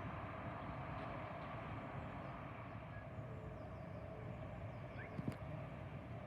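Steady outdoor background noise, a low rumble with a hiss over it, and a single sharp click about five seconds in.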